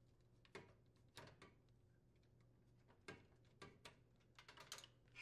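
Near silence broken by a few faint, scattered clicks as push-on wire connectors are worked off the terminals of a wall oven's clock.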